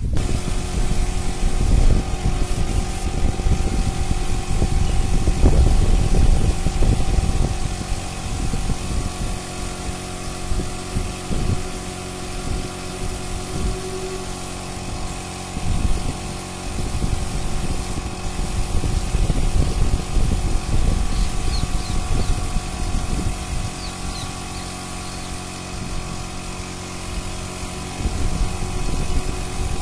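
A motor running steadily, giving several steady hums over an uneven low rumble and a hiss.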